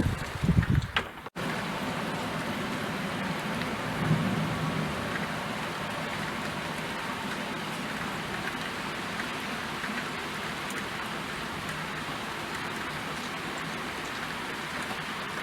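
Steady rain falling, an even hiss. In the first second there are a few loud low thumps, cut off by a brief dropout before the rain resumes evenly.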